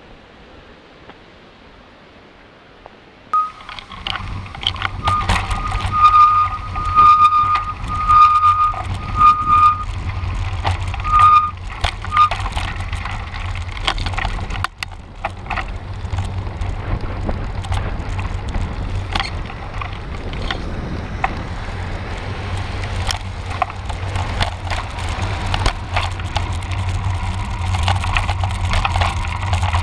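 A steady rush of river water, then from about three seconds in the sound of riding a cross bike: a low rumble of wind and tyres on the road with rattles and clicks. From about four to twelve seconds a high squeal comes in short repeated pulses.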